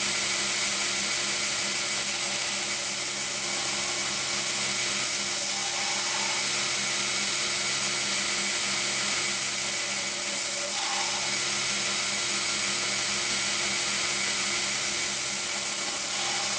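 Belt grinder running a 120-grit belt against a walnut knife handle: a steady motor hum under an even, high abrasive hiss as the wood is ground down.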